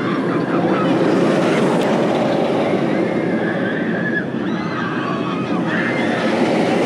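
Nitro, a 2001 Bolliger & Mabillard steel hyper coaster, sends a loaded train rolling along its track with a loud, steady roar. Riders' screams come faintly over it. The noise dips briefly about four seconds in.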